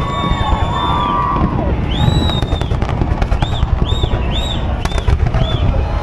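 Fireworks display: a dense barrage of bangs and crackling over a continuous low rumble. Several short whistles rise and fall in pitch, most of them in the middle of the barrage.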